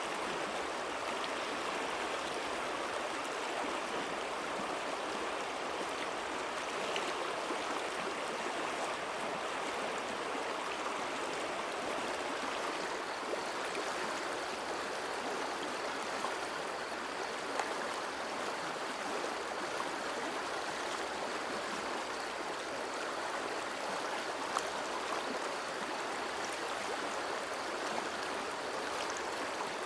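River water flowing, a steady, even rushing and babbling with no break.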